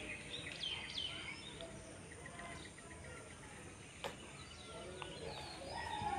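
Faint birds chirping among trees: short rising and falling calls and a quick trill about two seconds in, over steady outdoor background noise.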